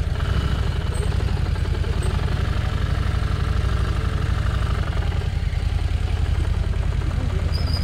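Harley-Davidson Street Rod 750's V-twin engine running steadily at low revs while the bike rolls slowly.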